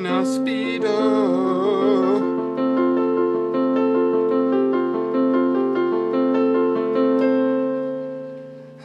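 Electric keyboard playing the closing bars of a song: a wavering, vibrato melody for the first two seconds over held chords, then slow sustained chords that fade out near the end.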